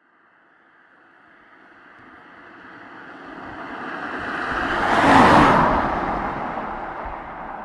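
A vehicle passing close by: a rushing noise that grows steadily louder, peaks about five seconds in, then fades away.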